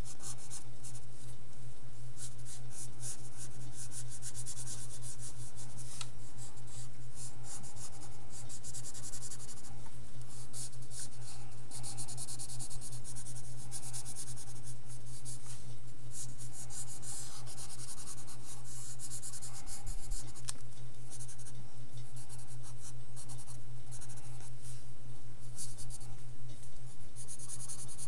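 Pencil scratching across sketchbook paper in quick, repeated drawing and shading strokes, coming in clusters with short pauses between. A steady low hum runs underneath.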